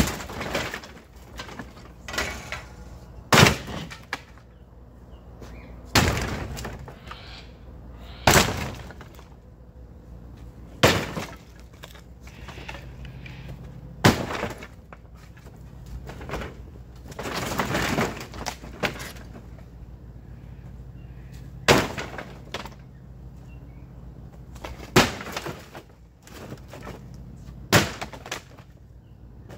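Sledgehammer blows smashing a doghouse apart: about ten heavy strikes, one every two to four seconds, some followed by a short crackle of breaking material.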